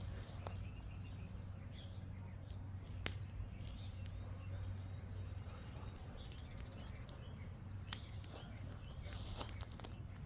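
Small wood campfire crackling, with a few sharp pops, the loudest about eight seconds in, over a low steady hum.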